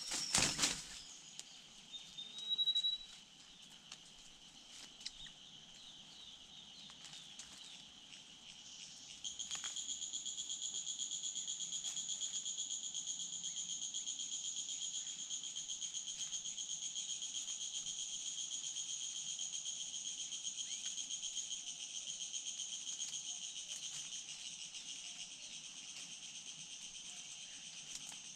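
Steady, high-pitched pulsing insect chorus that sets in abruptly about nine seconds in and carries on. It is preceded by a few short knocks and a brief high call in the first three seconds.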